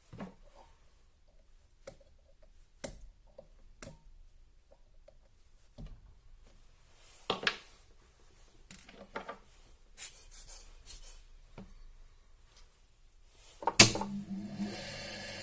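Scattered light clicks and knocks of a small knife and tools being handled, then a sharp knock near the end and an electric drill motor starting up with a steady hum.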